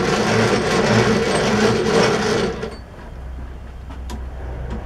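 Turnell & Odell metalworking lathe running steadily, then switched off and dropping away sharply about two and a half seconds in, leaving a low hum. A couple of light metallic clicks follow near the end as a chuck key goes into the chuck.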